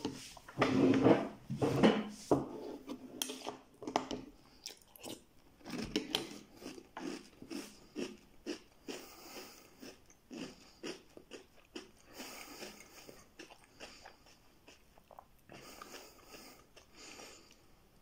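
A person chewing a mouthful of crunchy Nestlé Carlos V chocolate cereal close to the microphone, with rapid crunching. The crunches are loudest in the first two or three seconds and grow fainter as the mouthful is chewed down.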